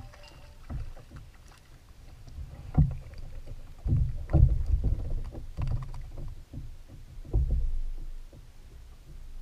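Irregular knocks and thumps on a plastic Shadowcaster fishing kayak as a small trout is reeled to the side, lifted aboard and handled. The loudest bumps come about three to six seconds in, with another near the end.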